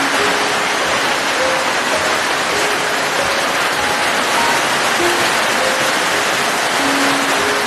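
Steady rain, a dense even hiss with no break, with faint, slow single notes of soft background music sounding over it.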